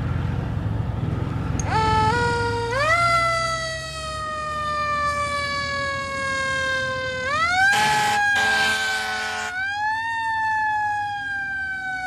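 Electronic siren-like tone with many overtones, starting just under two seconds in and gliding upward three times, sinking slowly after each rise. A brief hiss comes in over it about eight seconds in, and a low rumble runs underneath before the tone starts.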